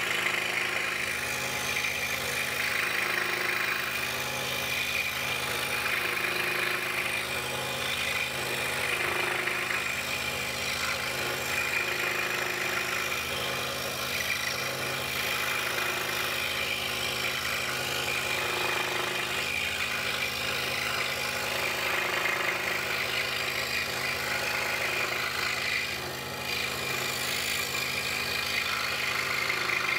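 DeWalt scroll saw running steadily, its blade sawing through a wooden puzzle blank as the piece is fed along curved pattern lines.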